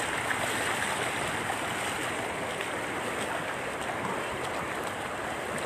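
Floodwater running across a road: a steady rushing wash of flowing water.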